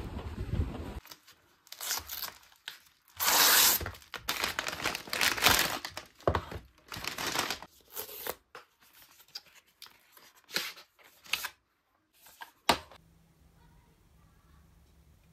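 Paper packaging of an Apple iPhone 14 silicone case being torn open and handled: a run of irregular tearing and crinkling rips, the longest about three seconds in, stopping a little before the end. A second of outdoor wind noise comes first.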